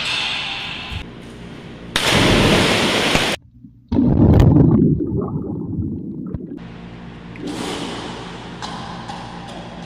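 A person jumps into an indoor swimming pool with a loud splash about two seconds in, then the sound turns to a dull, muffled churning of water heard with the microphone underwater, and near the end lighter splashing as a swimmer surfaces.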